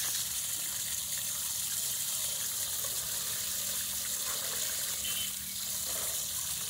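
Paddy seeds poured in a steady stream from a bag into a metal basin of salt water: a continuous, even hiss of grain falling into water. The seed is going into brine for a flotation test, in which light, poorly germinating seeds float and sound seeds sink.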